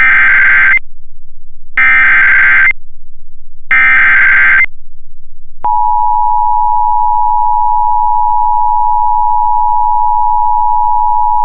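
Emergency Alert System signal. First come three SAME header data bursts, each a harsh electronic screech about a second long, two seconds apart. About five and a half seconds in, the steady two-tone attention signal starts, and this alert announces a severe thunderstorm warning.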